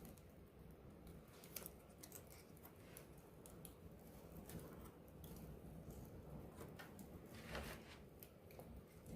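Campfire crackling faintly, with sparse sharp pops from the burning wood and a brief hiss about three-quarters of the way through.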